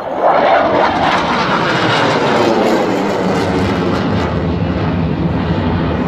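MiG-21 jet fighter's single turbojet flying past, a loud, steady jet noise that comes in suddenly, with its pitch sliding down over the first few seconds as it passes.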